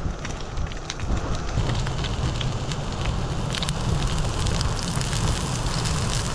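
Salmon fillets and broccoli frying in hot oil in a non-stick pan: a steady sizzle with many small spitting pops, over a low steady rumble.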